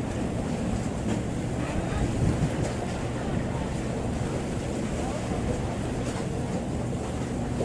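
Fishing boat under way: a steady low engine rumble with water washing and wind buffeting the microphone.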